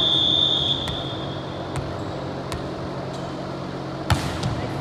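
Referee's whistle blown once: a short, steady, high tone at the start, under a second long. About four seconds in comes a single sharp smack of a volleyball being hit, over the background noise of the gym.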